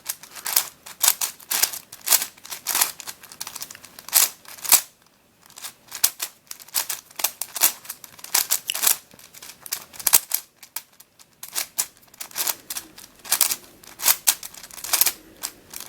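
Plastic clicking and clacking of a Witeden 4x4x4 Mixup Plus cube puzzle being scrambled by hand, its layers turned in quick succession, with two brief pauses.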